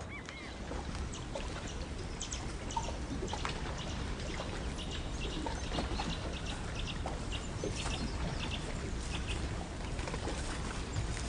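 Water lapping and trickling, with small birds chirping in short, repeated calls throughout.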